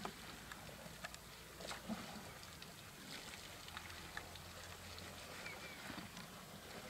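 Faint outdoor ambience in the bush: scattered soft clicks and rustles over a low hiss, with a low hum for about two seconds in the middle and a brief high chirp near the end.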